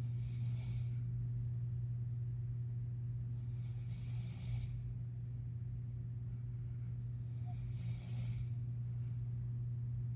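A man snoring in his sleep, a hissing snore about every four seconds, three in all, over a steady low hum.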